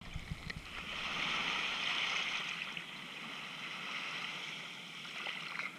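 Small waves washing up onto a sandy beach, a steady rush of surf that swells about a second in and then slowly eases.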